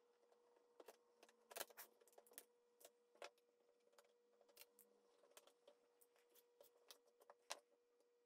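Faint, irregular clicks and taps of a small screwdriver and pry tool on a laptop's plastic case and screws as it is taken apart, over a faint steady hum.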